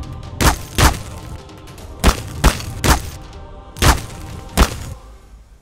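A quick series of sharp whacks, about seven in pairs and singles, from a staged nunchuck fight, over background music that fades out near the end.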